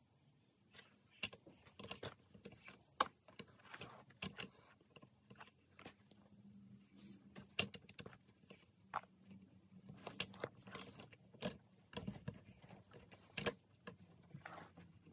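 Faint handling sounds of 3 mm paracord being looped through and pulled tight around a rifle's metal lever loop: irregular soft clicks and taps with light rustling of the cord.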